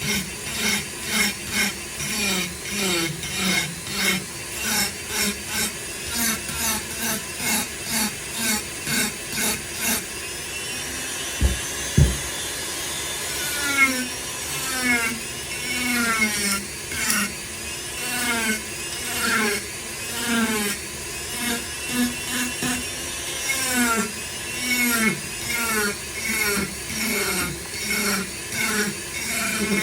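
Foredom flexible-shaft rotary tool grinding wood with a carving bit in repeated passes, about two a second, its whine dipping in pitch each time the bit bites and rising as it lifts off. Two short knocks come about twelve seconds in.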